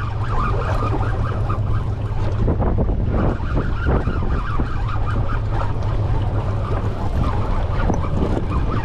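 Strong wind buffeting the microphone, a steady low rumble, with a rough noisy wash and scattered crackles above it.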